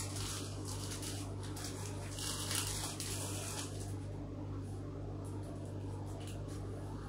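Steady low hum, with short soft rustling noises at the very start and again about two to three seconds in.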